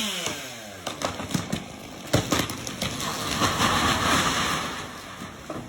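A motor slowing down, its pitch falling over the first second, followed by a run of sharp cracks and knocks about two seconds in.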